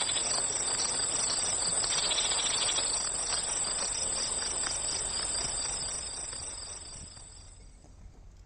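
A steady, shrill chorus of insects: a high continuous buzz with a pulsing layer just below it. It fades away over the last two seconds or so.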